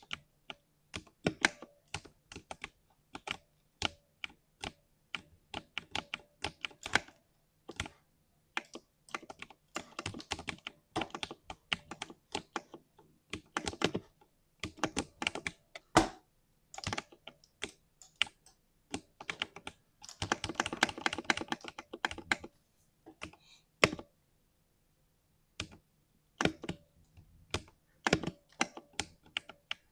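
Typing on a compact 60% mechanical keyboard, its keystrokes giving a smooth "thock" and coming in uneven runs. A fast flurry of keystrokes comes about two-thirds of the way in, followed by a short pause with a single keystroke.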